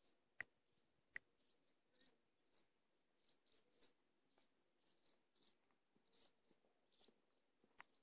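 Faint, high twittering chirps of swallows, short notes repeating every half second or so. A sharp click comes at about half a second and another just over a second in.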